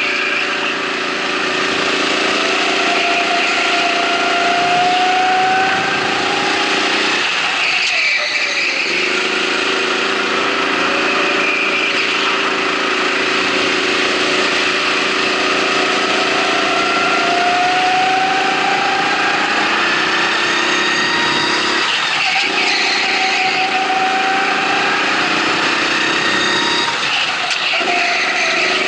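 Go-kart engine heard from onboard during a race: its pitch climbs slowly as the kart accelerates, then drops briefly three times as the driver lifts off for corners before climbing again.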